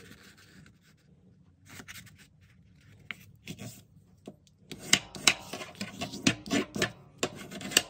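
A sheet of heavyweight mixed-media paper being folded and creased with a bone folder: faint scattered rustles at first, then from about five seconds in a quick run of sharp scrapes and taps as the crease is pressed flat.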